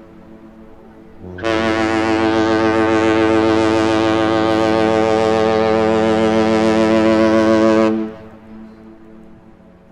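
Ship's horn sounding one long, steady blast of about six and a half seconds. It starts a little over a second in and cuts off near the end, leaving a short fading echo. The tone is deep, with many overtones.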